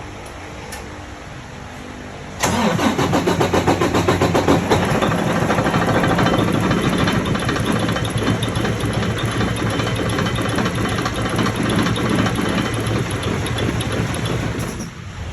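Detroit Diesel DD15 inline-six diesel engine cranking and catching suddenly about two and a half seconds in, running rough and hesitating, then dying off near the end. It sounds like crap: a start-then-stall fault whose cause is unknown, with bad fuel, plugged fuel filters, the fuel pump or the injectors among the suspects.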